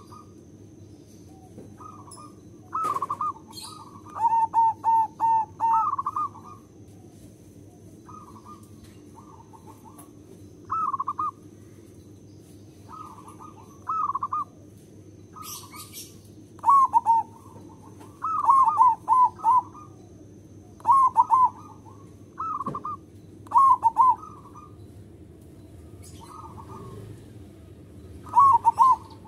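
Zebra dove (perkutut) singing its staccato cooing song: short phrases of quick, clipped coos repeated every second or two, some louder than others. Faint high chirps sound in the background.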